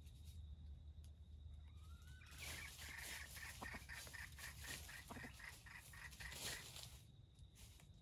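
Red junglefowl rooster calling faintly: a run of rapid, harsh clucking notes from about two and a half seconds in until near seven seconds, over a low steady hum.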